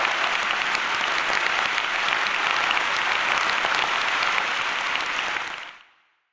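Applause: many hands clapping in a steady patter that fades out near the end.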